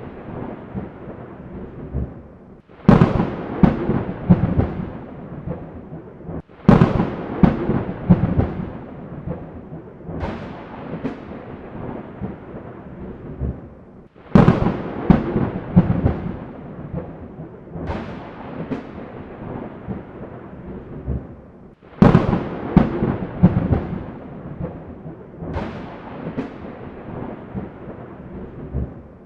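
Thunderstorm: seven sharp thunder cracks at an even spacing of nearly four seconds, each trailing off into a crackling rumble, over a steady hiss of rain.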